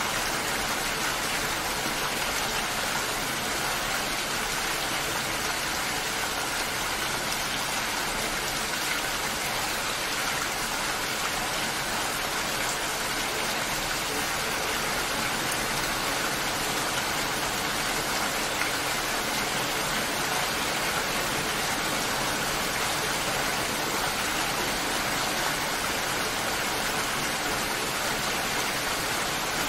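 Rain falling steadily, an even, unbroken hiss of rainfall with no thunder or other events.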